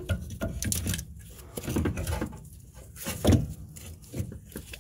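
Scattered metallic clicks and knocks of hand tools and parts being handled as a motor mount is worked free in the engine bay, the loudest a little past three seconds in.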